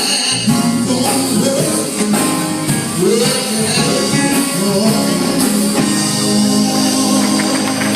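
Gospel music with singing and band accompaniment, a long held vocal note near the end.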